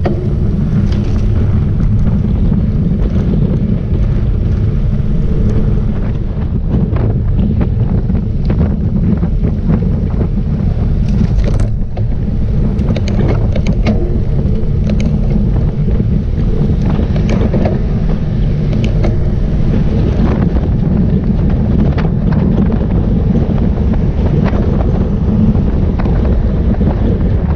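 Wind buffeting the microphone of a camera riding along on a road bike: a loud, steady low rumble with scattered faint ticks.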